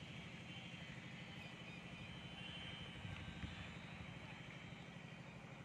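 Faint, steady low engine hum, with a thin outdoor background hiss above it.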